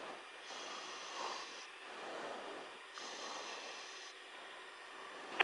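Faint hiss of an open aircraft radio feed between transmissions, its upper hiss swelling and easing about every two and a half seconds.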